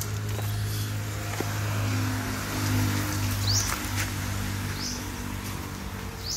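Steady low engine hum, with several short rising bird chirps over it.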